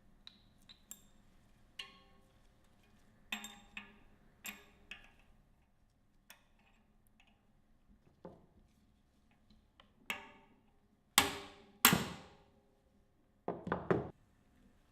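Bearing removal from a bicycle rear hub shell with a blind bearing puller: light metal clicks and taps as the tool is set, then two sharp, ringing metal blows about a second apart and a short cluster of knocks near the end, as the bearing is driven out.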